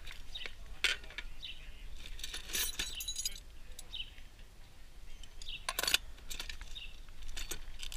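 Hard metal objects clinking and rattling against each other, a cluster of clinks a few seconds in and a sharper one about six seconds in, with short bird chirps repeating throughout.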